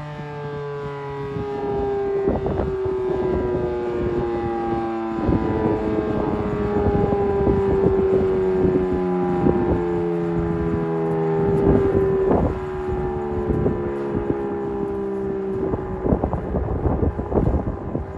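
Modified Federal Signal Model 7B outdoor warning siren winding down near the end of its full alert: a loud tone with overtones sliding slowly lower in pitch, briefly stepping back up twice. Gusts of wind buffet the microphone throughout.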